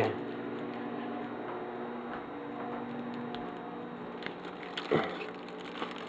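Steady hum of a microwave oven running, with a few light ticks and a short crackle about five seconds in.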